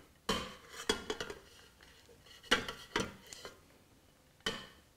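A spatula scraping margarine out of a small bowl into a stainless steel mixing bowl: about five short scrapes and clinks of the spatula and bowls.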